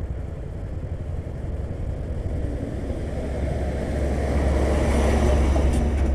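Hino diesel tanker truck passing close in the opposite direction, its engine and tyres swelling to the loudest point in the last two seconds. Underneath runs a steady low engine rumble with wind noise.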